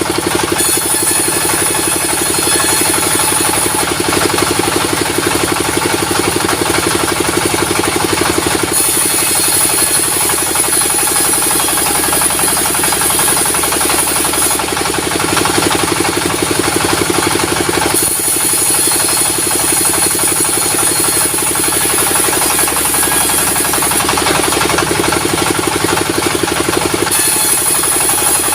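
Sawmill machinery running steadily, its engine beating rapidly, while a saw blade cuts timber. A high-pitched hiss comes in and drops out in stretches of several seconds as the blade bites into the wood.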